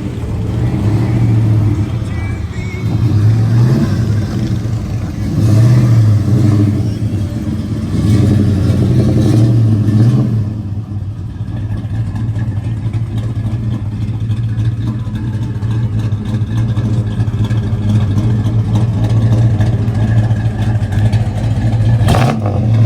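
An engine revving in several rises and falls over the first ten seconds, then running more steadily.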